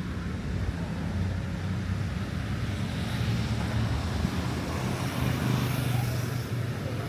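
Street traffic: vehicle engines running steadily at low pitch under a general road noise.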